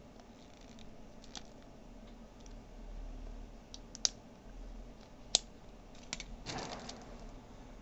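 Small hard parts of a pair of magnetic reading glasses being handled. There are scattered light clicks and two sharp snaps, about four and five seconds in, then a brief rustle near the end.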